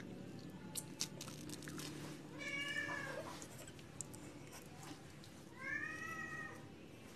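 A cat meowing twice, each meow under a second long and rising then falling in pitch. A few light clicks come about a second in.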